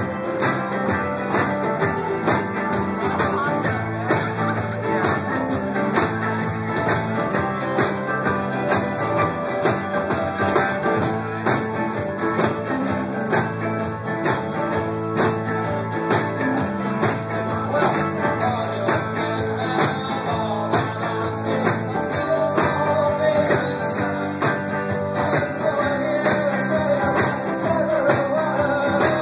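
Live folk-rock band playing a song with electric guitar, drums and tambourine on a steady beat. A voice singing comes in over the band for the last several seconds.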